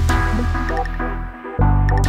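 Background music with sustained low tones, fading away briefly about a second and a half in before starting again.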